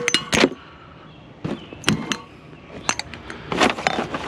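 A few short knocks and clanks at irregular intervals as objects are handled, with a denser rustling clatter near the end.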